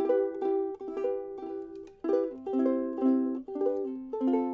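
Vintage Kamaka soprano koa ukulele being fingerpicked, single notes and chords ringing, with a short gap about two seconds in. The player finds its intonation finicky: it goes sharp if fretted too hard.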